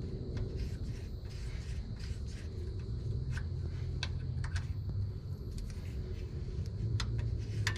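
Hand tools working on an engine's timing-cover bolts: a few scattered sharp metal clicks and taps over a low steady hum.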